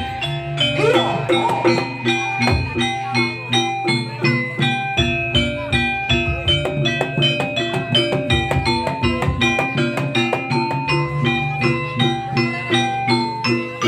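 Gamelan-style jaranan music: bronze metallophones and gong-chimes playing a fast repeating pattern of ringing struck notes over steady drumming.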